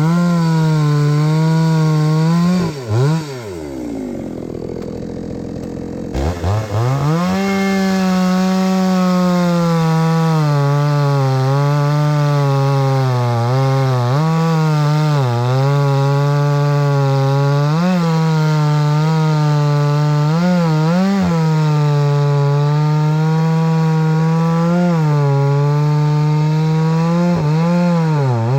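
Two-stroke chainsaw running at high revs, its pitch dipping again and again as it bogs under load cutting through logs. About three seconds in it drops back to idle, then revs up again at about six seconds and carries on cutting.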